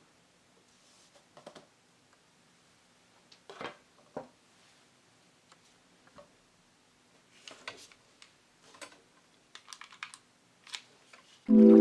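Scattered light knocks and clicks of craft supplies being set down one at a time on a cloth-covered table: a cardboard tissue box, scissors and a plastic hot glue gun. A faint steady hum lies underneath, and music comes in loudly near the end.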